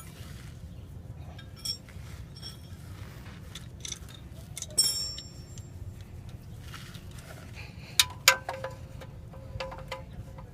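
Metal clinks and taps of an oil filter wrench being fitted to and worked on a car's oil filter. A few sharp knocks stand out, one ringing about five seconds in and the loudest about eight seconds in, over a low steady rumble.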